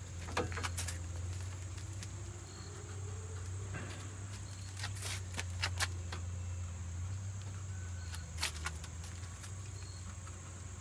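Steady high chirring of insects over a low steady engine hum, with a few sharp metallic clicks and knocks about half a second in, around five to six seconds in, and once more near eight and a half seconds, as a steel bar is handled against the engine and its mounting.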